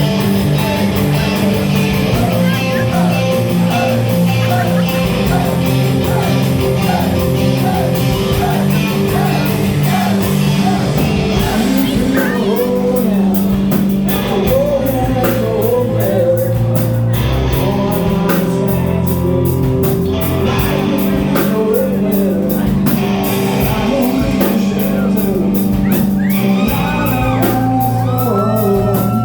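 Live rock band playing loud amplified music, with drums and cymbals keeping a steady beat and a singing voice over the instruments.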